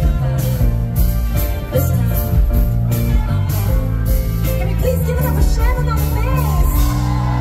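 Live band playing a pop song, with drum hits and a heavy bass line under a woman's lead vocal sung through the PA. The vocal line stands out more about five seconds in.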